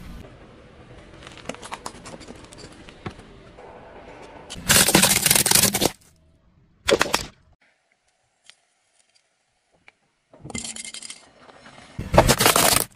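Hard plastic objects (small drink bottles, toy cars, a plastic mask) cracking and crunching under a slowly rolling car tyre. Faint crackling comes first, then four separate loud bursts of crunching with near silence between them; the last, near the end, is the loudest.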